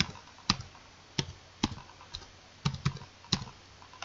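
Typing on a computer keyboard: about seven separate keystrokes at an uneven pace, typing out a search term.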